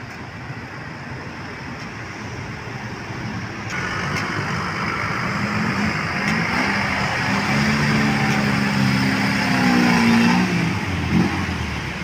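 Tour bus engine running as the bus climbs toward the listener, growing steadily louder, with a low steady drone strongest in the second half, over the noise of other passing traffic.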